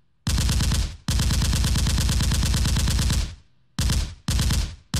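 Rapid automatic machine-gun fire, added as a sound effect, in five bursts: a short one, a long one of about two seconds, two short ones, and a fifth starting near the end. Each burst stops abruptly and leaves a brief fading tail.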